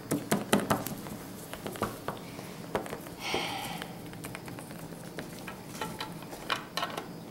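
Small plastic toy figures and doll furniture handled and set down on a tabletop: a quick run of light clicks and taps, a brief scraping rustle about three seconds in, then a few more taps near the end.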